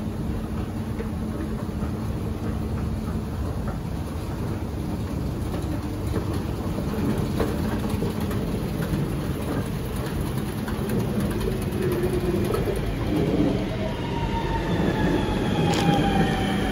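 Nanjing Metro train pulling into an underground station: a low rumble grows louder, and in the last few seconds the train's electric drive whines, falling in pitch as it brakes, with one sharp click.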